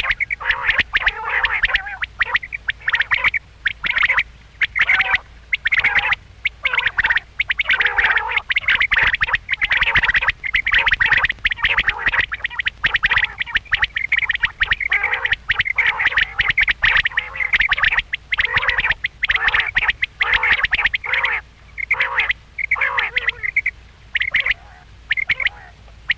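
Quail calling: a rapid, nearly continuous run of short, sharp calls, broken only by brief pauses.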